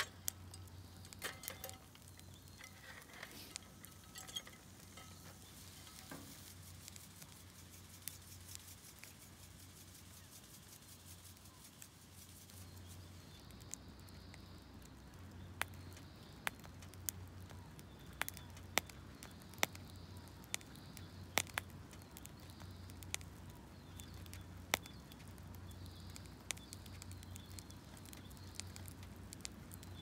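Sparse crackling and popping of a wood campfire burning under a cooking grill, over a faint low hum. The pops come more often in the second half.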